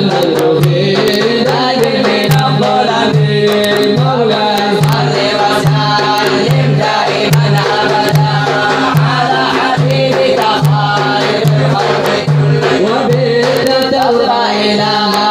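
Instrumental interlude of a nasheed: a steady, evenly spaced hand-drum beat with sharp percussion strokes under a wavering melody.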